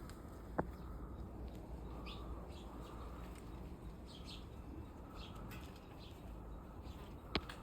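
Pet chickens making soft chirping calls, a few short high notes scattered through, with two sharp clicks, one just after the start and one near the end.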